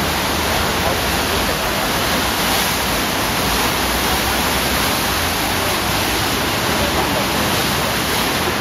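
Fast canal water surging over a step in the stream bed and breaking into a standing river wave: a steady, unbroken rush of white water.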